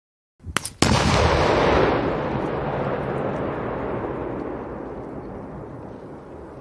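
C4 plastic explosive detonating: a few sharp cracks, then a loud blast just under a second in, followed by a long rumble that slowly fades away.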